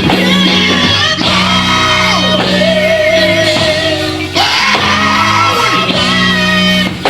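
Live gospel quartet singing: a lead singer stretches the words into long, wavering held notes with a shouting edge, over a band with a stepping bass line.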